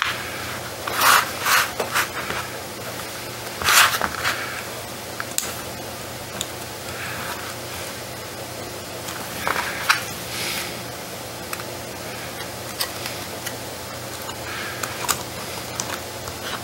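Short scrapes, rubs and small clicks of an eMMC chip being seated by hand in a BGA reballing jig and a metal stencil fitted over it, with the loudest scraping about 1, 4 and 10 seconds in.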